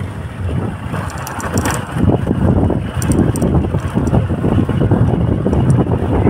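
Wind buffeting the microphone: a loud, uneven low rumble with no steady pitch.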